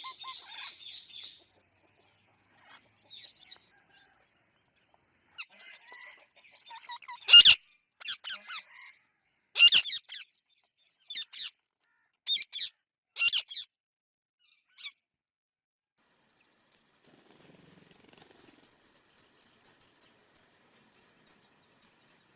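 Parrot calls: scattered chirps and harsh screeches, the loudest about seven seconds in, then a quick run of short, high chirps over the last five seconds.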